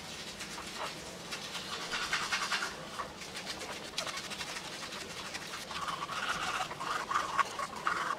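Manual toothbrush scrubbing teeth through toothpaste foam: quick back-and-forth strokes making a wet, scratchy brushing sound, a little stronger near the end.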